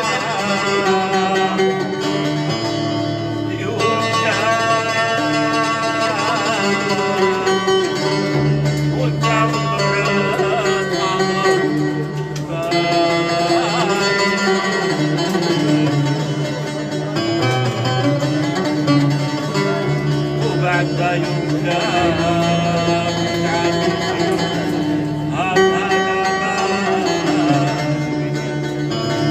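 Live music: plucked string instruments playing a melody over a shifting bass line, with wavering sung or bowed melodic lines above.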